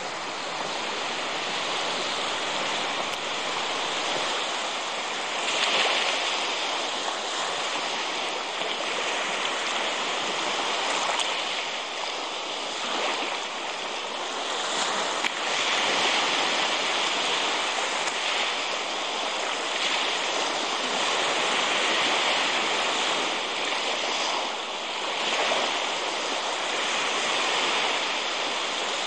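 Baltic Sea surf: small waves breaking and washing up a sandy beach, a steady hiss that swells every few seconds.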